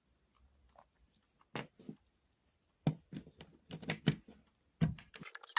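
Plastic Rubik's cube pieces clicking and knocking as they are handled and pushed back into the cube, a scattering of separate sharp clicks.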